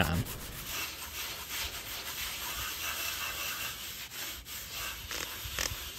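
Plastic paint scraper and sponge scraping and scrubbing a Pit Boss pellet grill's steel flame broiler, in repeated rubbing strokes, loosening carbonized drippings softened by oven cleaner.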